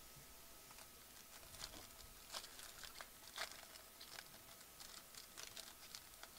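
Faint crinkling and tearing of a foil trading-card pack wrapper as it is ripped open, a run of short irregular crackles, the loudest about two and a half and three and a half seconds in.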